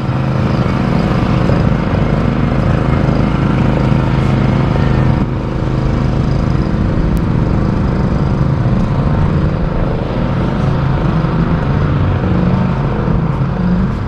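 Engine of construction equipment running steadily: a loud, continuous mechanical drone with no break.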